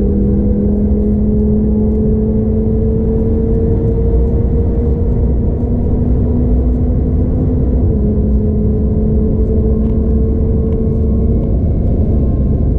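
Audi TT RS's turbocharged 2.5-litre five-cylinder engine at full throttle, its pitch climbing steadily as the car gathers speed, with one gear change about eight seconds in, over heavy wind and tyre roar.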